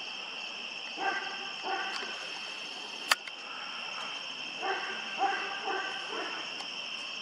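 A dog barking, twice about a second in and three times near the five-second mark, over a steady chorus of night insects such as crickets. A single sharp click about three seconds in.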